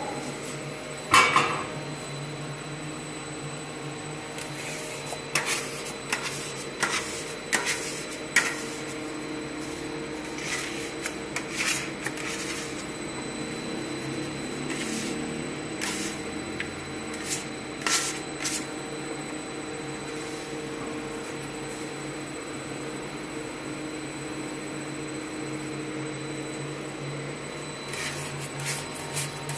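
Commercial dough mixer running steadily as its hook kneads a large batch of bread dough in a steel bowl. Scattered clicks and knocks of metal against the bowl come over the hum, the loudest about a second in.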